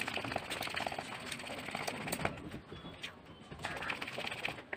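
Epoxy resin and hardener being stirred by hand in a small steel bowl: irregular scraping and clicking of the mixing tool against the metal. A bird calls in the background.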